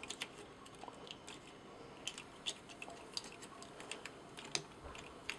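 Small plastic parts of a Fansproject Columpio toy figure and its sword clicking and tapping as they are handled and fitted together: faint, irregular little clicks, one a little louder about two and a half seconds in.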